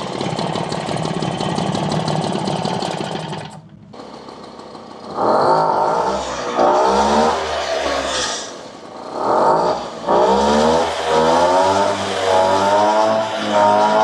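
Mobylette moped's single-cylinder two-stroke engine running just after its ignition timing was set: a steady fast run, a brief dip in level near four seconds in, then revved up and let back down repeatedly, its pitch rising with each blip of the throttle. The engine fires readily, the sign the timing is right.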